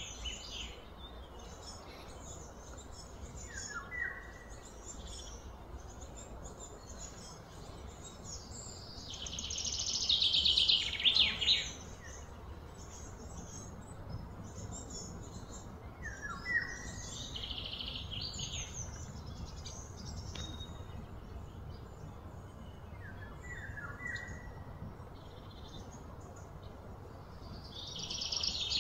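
Outdoor ambience of birds chirping and calling, with short high calls scattered throughout and louder bursts of chirping that swell about ten seconds in and again near the end.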